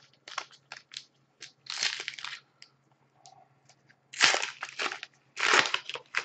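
Hands crinkling and tearing open the wrapper of a trading card pack, in three rustling bursts, with light clicks and taps of cards being handled in between.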